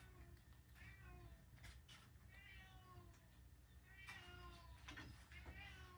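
Domestic cat eating from a bowl, giving several faint, drawn-out mews that fall in pitch every second or so, with small clicks of chewing between them.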